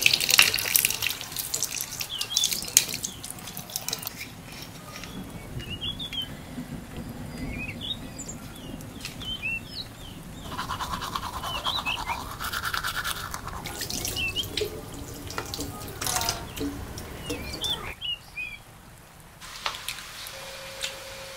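Toothbrush scrubbing teeth, with a tap running into a washbasin at the start and small birds chirping now and then in the background. A steady hum comes in near the end.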